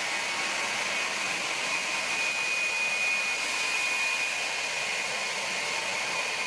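Ilyushin Il-76 transport's four turbofan engines running as it taxis close by: a steady rushing noise with a high whine held through it.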